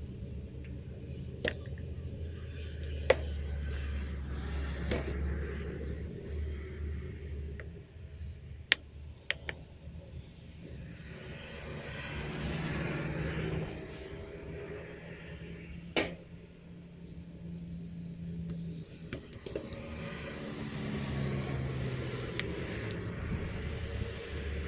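Homemade timing-belt strap wrench being worked with a ratchet handle and socket on an oil filter: a handful of sharp metallic clicks and knocks a few seconds apart, over a low steady hum.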